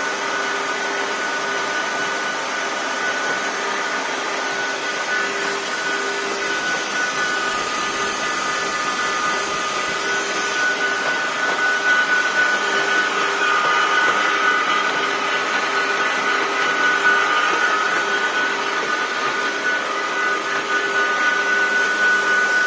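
Tecnolegno TGL 640 edgebanding machine running: a steady whir of its motors with a high whine over it, a little louder from about halfway.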